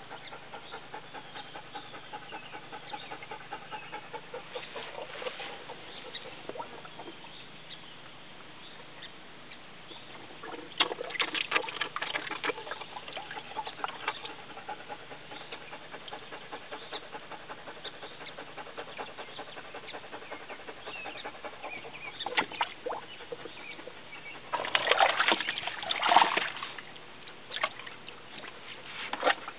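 Water splashing and sloshing in a plastic tub as a large dog paws and steps in it, in scattered bursts: a spell of splashing about eleven seconds in, a short one a little past twenty seconds, and the loudest, most vigorous splashing near the end.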